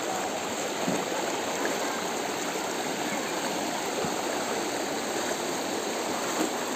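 Floodwater flowing over a paved road, a steady, even rush of water.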